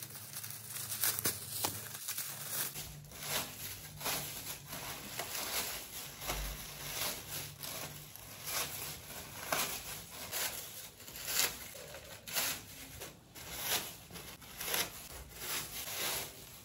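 Artificial Christmas tree being assembled: its plastic branches rustle and crinkle in a run of short, irregular handling noises.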